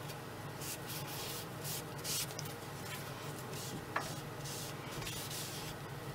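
A stain-soaked cloth rag rubbing wood stain into a wooden rifle stock, in a series of short swishing strokes. A sharp click comes about four seconds in.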